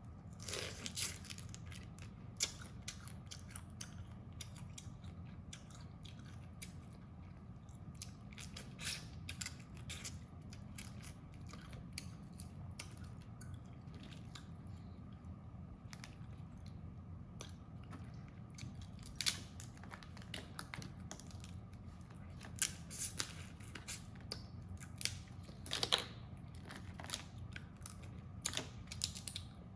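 Crab shells being cracked and gnawed while eating, with chewing: scattered sharp cracks and clicks, louder and more frequent in the second half, over a low steady hum.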